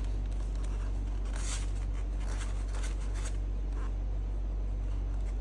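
Irregular scratchy rubbing strokes, a cloth wiping the inside of a helmet shell clean, over a steady low hum.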